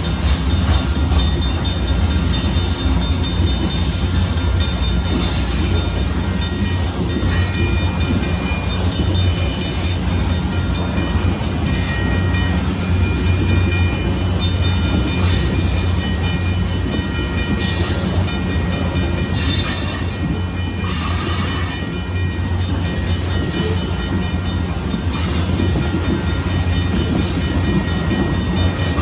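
Union Pacific freight train of loaded gravel hopper cars rolling past close by: a steady heavy rumble with the rhythmic clatter of wheels over the rails.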